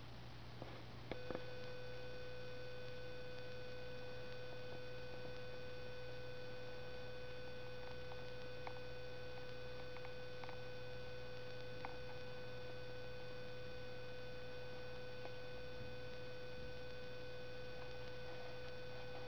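A steady, unwavering electronic-sounding tone that switches on with a click about a second in and cuts off with a click at the very end, over a low steady hum.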